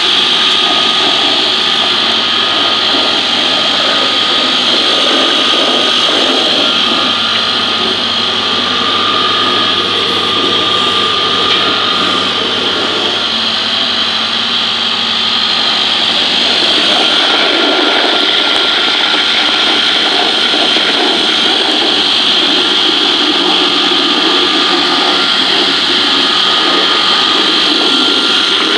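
A stainless-steel colloid mill for chili paste running under load, its electric motor and grinding rotor making a loud, steady mechanical whine while it grinds dried chilies into paste. The tone shifts slightly a little past halfway, as the low hum drops away.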